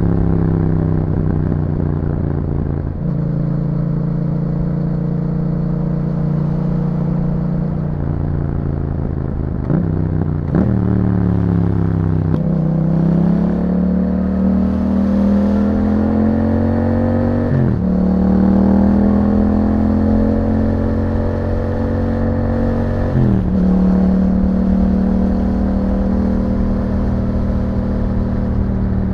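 2021 Yamaha MT-07's 689 cc parallel-twin engine running under way through an Akrapovic exhaust. Its pitch changes suddenly three times, about 10, 18 and 23 seconds in, and rises slowly in between.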